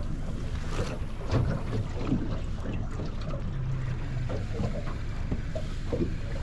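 Wind buffeting the microphone and waves slapping against a small boat's hull on a choppy sea.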